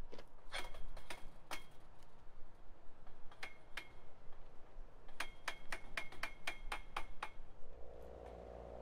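Hand tool working the steel fittings of a chain-link gate: sharp metallic clicks with a ringing tone, a few scattered at first, then a quick run of about ten in two seconds. A steady low hum comes in near the end.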